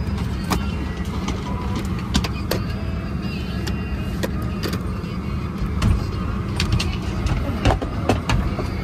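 Steady low rumble inside a parked Boeing 737-900ER's cabin, with frequent sharp clicks and knocks as the seatback pocket and fold-down tray table are handled.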